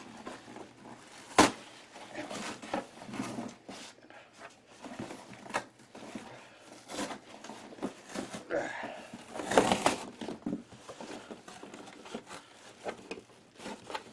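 Cardboard shipping box being handled and torn open: scattered rustles, scrapes and creaks, with a sharp knock about a second and a half in and a louder stretch of ripping near ten seconds.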